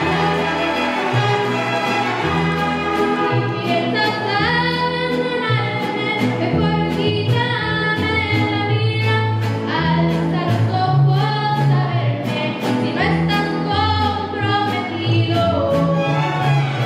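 Mariachi ensemble playing a song: a girl sings the lead over violins, a strummed guitar and a bass line. The strumming keeps a steady rhythm, and the bass moves from note to note.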